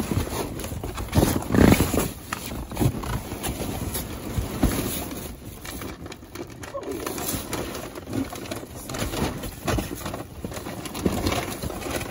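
Cardboard boxes and bubble wrap crunching, rustling and knocking under a person's knees and boots as they climb through a dumpster full of packaging. Irregular thumps throughout, loudest a second or two in.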